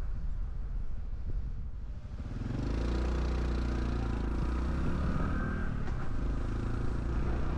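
Honda 125 cc Cub motorcycle's single-cylinder engine running while riding, with wind rumble on the microphone. About two and a half seconds in, the engine note gets louder and holds steady.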